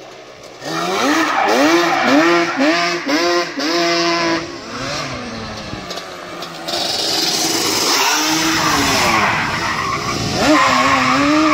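Yamaha Banshee 350's twin-cylinder two-stroke engine on aftermarket exhaust pipes, cutting in loudly about a second in with a run of quick revs that rise and fall, then holding higher revs with a hiss of tyres scrubbing on concrete as the quad drifts, and revving up again near the end.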